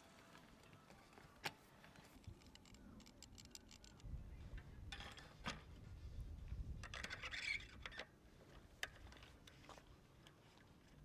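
Quiet handling noises of a bicycle build: a few sharp small clicks and scrapes of tools and parts, with a low rumble and rustle in the middle for a few seconds.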